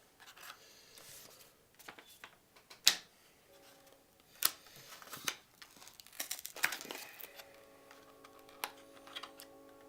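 Hands handling computer parts: scattered clicks, taps and crinkles, the sharpest click about three seconds in. A faint steady hum comes in about seven seconds in.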